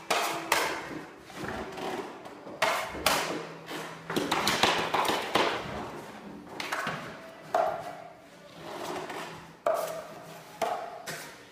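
Steel drywall taping knife scraping joint compound over Straight Flex tape in a wall-to-ceiling angle, and against the mud pan: about ten rasping strokes, each under a second long, some with a faint squeal.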